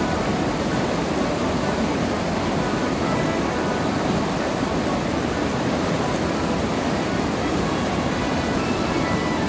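Steady rush of whitewater rapids in a mountain stream, with quieter background music over it.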